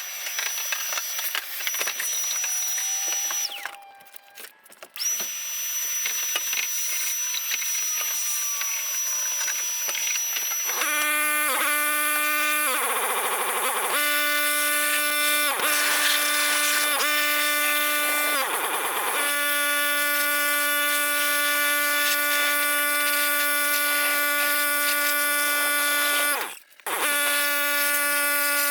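Vacuum cleaning out a truck cab: a steady hiss with a thin high tone at first, then from about eleven seconds in a loud electric-motor whine. The whine's pitch sags briefly several times, twice deeply, before recovering. There are two short breaks in the sound.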